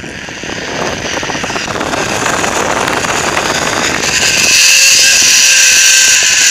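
Zipline trolley pulleys running along the steel cable with wind rushing past the microphone: a whir that grows louder as the rider picks up speed, with a steady high whine setting in about four and a half seconds in.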